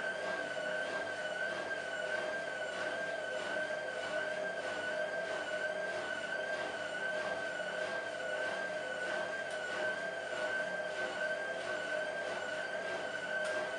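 Hotpoint 1000 de luxe WM23W Aquarius Ultima washing machine on its high-speed final spin: a steady, high-pitched motor and drum whine that wavers slightly and regularly.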